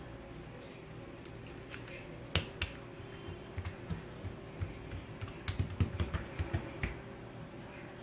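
Hands working thin oiled feteer dough on a countertop: irregular small clicks and smacks as the dough is pressed, stretched and lifted, coming thickest in the second half. A faint steady hum runs underneath.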